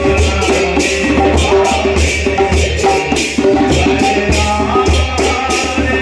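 Kirtan music: large brass hand cymbals (kartals) clashed in a steady rhythm, about two to three strikes a second, over the held chords of a harmonium.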